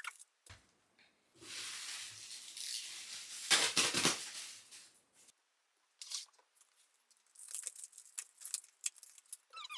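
Cat-food packaging being torn open: a long tearing rasp, loudest a little before halfway, followed by crinkling and light clicks as it is handled.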